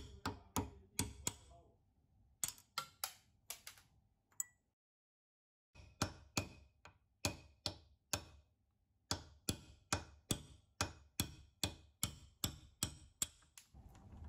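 Sharp metallic clicks and taps as a steel screwdriver tip prods and pries at the greasy gears of an old hand-cranked drill. The clicks come in an irregular run of about two or three a second, with a brief pause about five seconds in.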